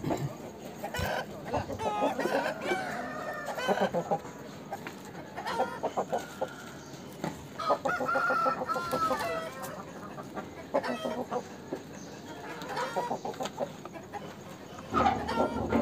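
Aseel chickens clucking in short repeated calls, with a rooster crowing once in a longer held call about eight seconds in.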